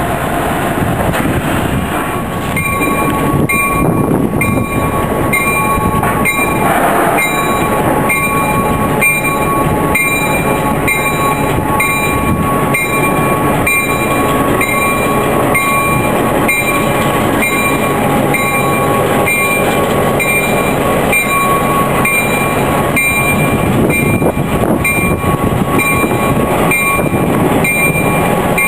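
Norfolk Southern diesel locomotives running on the shop turntable, a steady engine rumble with a bright metallic ring repeating about once a second from a few seconds in.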